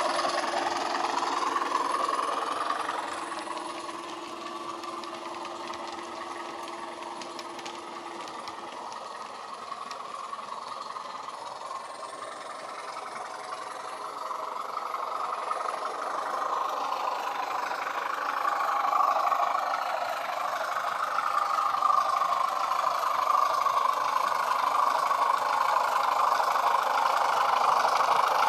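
A Class 20 diesel locomotive's engine sound, played through the small speaker of an ESU LokSound hifi sound decoder in a moving Bachmann model locomotive. The engine sound fades as the model runs away and grows louder again near the end as it comes back.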